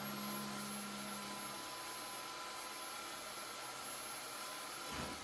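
Electric drill running at a steady speed with a high whine, drilling an eighth-inch pilot hole in sheet steel with a cobalt bit. The motor winds down just before the end.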